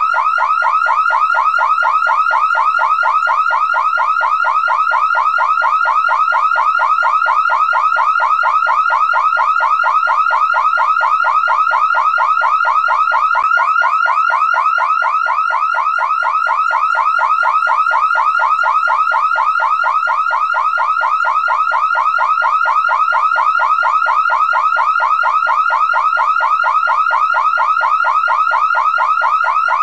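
Car alarm siren going off without a break: a loud electronic tone that sweeps quickly upward over and over, several times a second, never changing its pattern.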